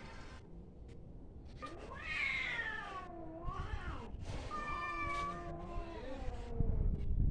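Cats yowling at each other in a fight standoff: long, wavering, drawn-out yowls that bend up and down in pitch, at times two voices overlapping. A loud low rumble comes near the end.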